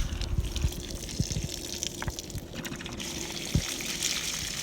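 Water pouring and splashing out of a plastic water jug as it is emptied, getting louder about three seconds in, with a few light knocks from handling.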